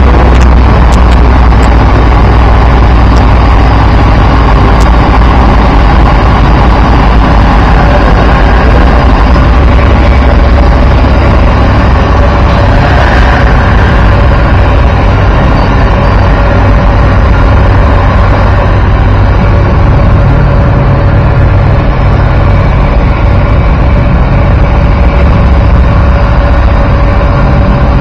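Heavy diesel engine running steadily close by, a loud constant low rumble with a faint higher hum.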